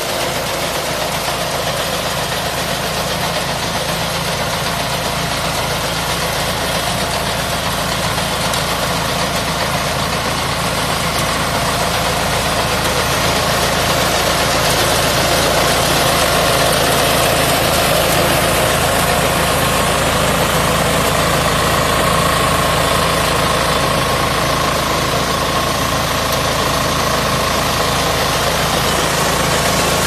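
Mini tracked rice combine harvester at work: its 10 hp diesel engine runs steadily under load while the machine cuts and threshes rice, making one dense, continuous mechanical noise that grows a little louder about halfway through.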